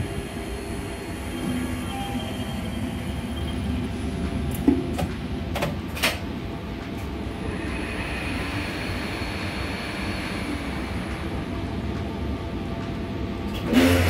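Mitsubishi elevator traction machine running on a test run after work on its rotary encoder, a steady mechanical rumble with faint hum. A few sharp clicks come about five to six seconds in, and a louder knock comes near the end.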